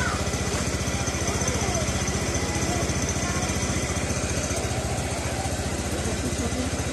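Honda Beat scooter's small single-cylinder four-stroke engine idling steadily, with an even low pulse. It is left running during welding so that the battery fuse need not be pulled.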